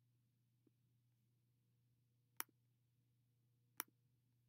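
Near silence over a faint steady low hum, broken by two sharp computer mouse clicks about a second and a half apart, with a fainter tick before them.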